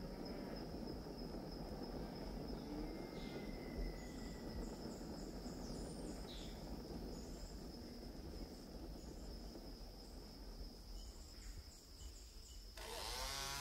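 Crickets keep up a steady high-pitched drone with a pulsing chirp above it, over a low rustling hiss of forest ambience. Shortly before the end, a chainsaw starts loudly, its pitch rising and falling as it revs.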